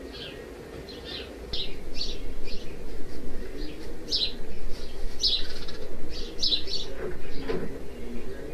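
Small birds chirping: a quick string of short, high, falling chirps, several a second, over a steady low hum.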